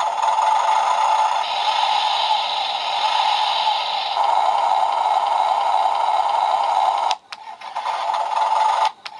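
Toy CAT excavator's electronic engine sound effect playing through its small built-in speaker: a steady, noisy engine sound that shifts a little about 1.5 and 4 seconds in and breaks off briefly about 7 seconds in and again near the end.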